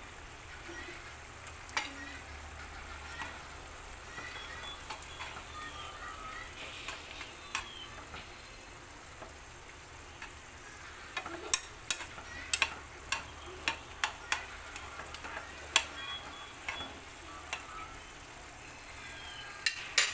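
Ground pork and potato stew simmering and bubbling in a frying pan over a gas burner. A metal spoon stirs it, clinking sharply against the pan in a run of knocks starting about 11 seconds in and twice more near the end.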